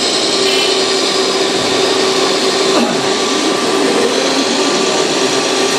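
Steady whine of radio-controlled scale construction models' electric drive motors and hydraulic pumps, holding one constant tone, with a motor briefly changing pitch about three seconds in.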